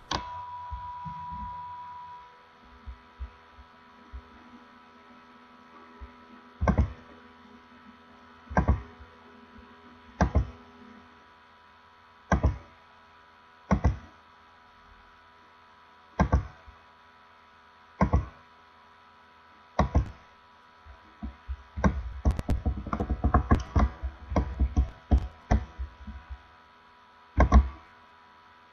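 Computer mouse clicks picked up by the microphone, sharp and single, about one every two seconds, then a quick flurry of clicks a few seconds before the end, over a steady electrical hum.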